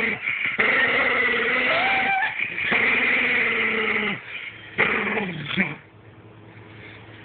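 A dog growling and grumbling in three drawn-out, wavering bouts, its vocal protest at being teased.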